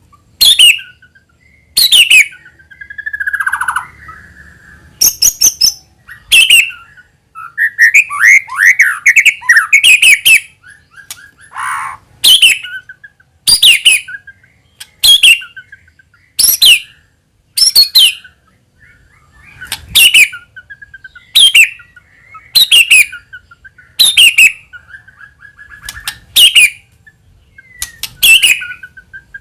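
White-rumped shama calling: a sharp call falling from high pitch, repeated about every second and a half. Short warbled song phrases come between the calls around the third, eighth to tenth and twelfth seconds.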